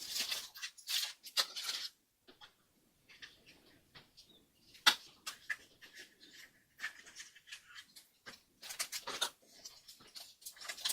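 Kinder Surprise egg being unwrapped and opened by hand: scattered crinkles, rustles and small plastic clicks with short pauses between them.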